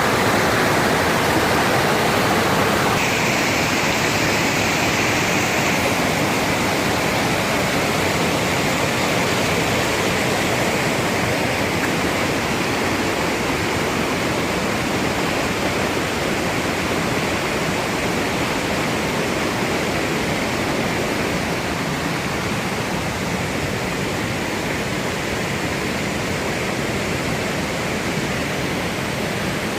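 Waterfall water rushing steadily, a constant wash of noise whose tone shifts slightly about three seconds in.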